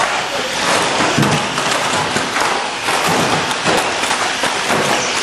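1/12th-scale RC banger stock cars racing: a continuous hiss and rush of cars and tyres, broken by frequent knocks and clatter as they bump into each other and the barriers.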